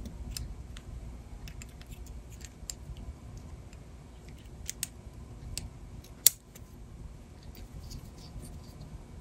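Small plastic-and-metal parts of a Mac Plus 800K floppy drive's eject gear module clicking and scraping as they are fitted back together by hand, with one sharp click about six seconds in.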